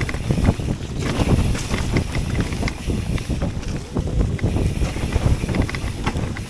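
Electric mountain bike riding down a rough forest trail: tyres rolling over wet leaves and dirt, with irregular knocks and rattles from the bike over bumps and wind buffeting the microphone.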